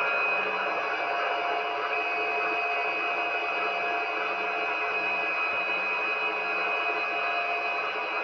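Candy washing machine running, with a steady motor whine over an even rushing noise.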